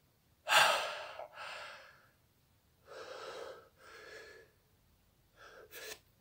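A man gasping and breathing hard through an open mouth: one loud sharp gasp about half a second in, then several heavy breaths. This is his reaction to the burn of a Carolina Reaper chocolate pepper in his mouth and throat.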